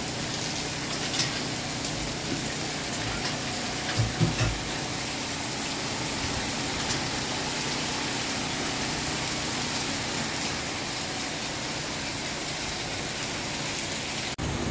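Hurricane rain and wind, a steady heavy rush, with a few short low thumps about four seconds in.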